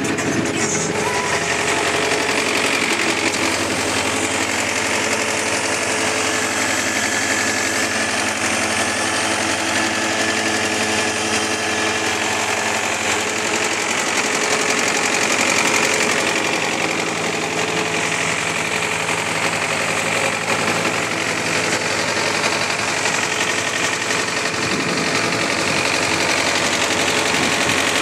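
Belarus 820 tractor's four-cylinder diesel engine running steadily at an even speed, heard close to the open engine bay.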